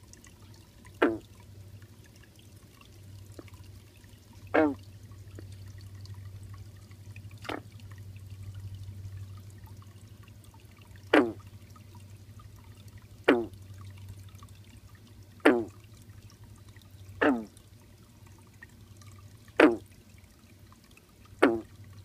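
A frog croaking in a garden pond: nine short calls, each a quick downward sweep in pitch, one every two to three seconds. A steady trickle of water and a low hum run underneath.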